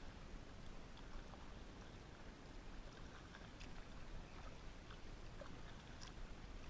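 Kayak paddling: the paddle blades swishing through the water and dripping, with small splashes and ticks, over a low steady rumble.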